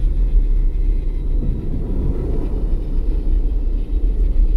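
Battery-powered BRIO toy steam locomotive running along wooden track: a steady low rumble from its motor and wheels.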